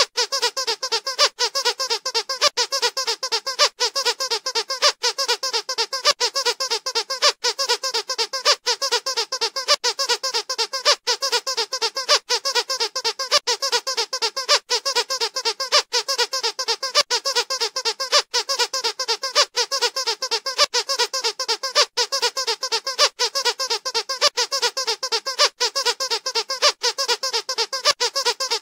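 Squeaky dog toy squeezed over and over in quick succession, several high squeaks a second.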